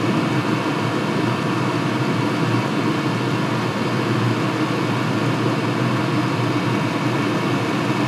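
Chinese diesel air and water heater running at maximum power: a steady combustion and blower noise.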